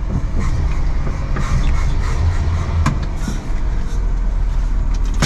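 Old Jeep's engine running as it is driven, a steady low rumble heard from the driver's seat, with a sharp click about three seconds in.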